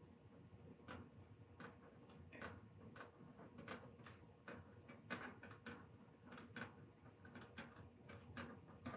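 Faint, irregular ticks and short scratches of a marker pen writing letters on a toolbox drawer label.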